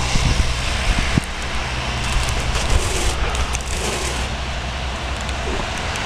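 Road traffic on a wet, slushy street: a car's tyres hissing over the wet road surface above a low rumble, swelling in the first half and easing off toward the end.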